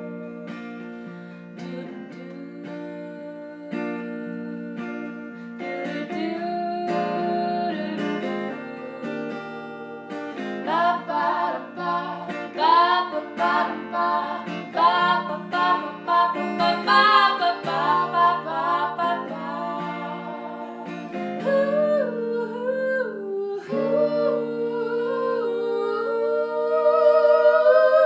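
Acoustic guitar strumming chords. From about ten seconds in, a voice sings a winding melody over it, ending on a loud held note with vibrato.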